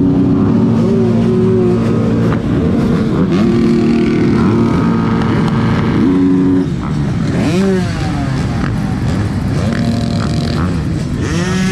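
Several motocross bikes running at once, their engines at different steady speeds overlapping, with throttle blips that rise and fall in pitch, one about halfway through and another near the end.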